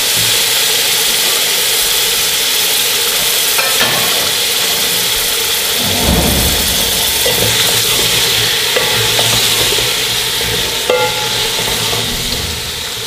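Cauliflower florets and potato chunks sizzling steadily in hot ghee and fried masala in a metal pot, with a spatula stirring through them.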